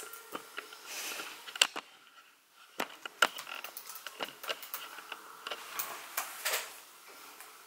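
Fingers typing on a laptop keyboard: soft, irregular key clicks, with a short pause about two seconds in.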